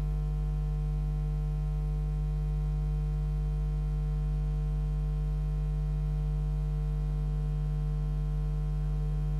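Steady electrical mains hum with a ladder of fainter higher overtones, unchanging throughout, on an old broadcast soundtrack with no other sound.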